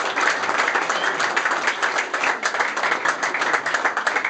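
A crowd applauding, many hands clapping in a dense, steady patter.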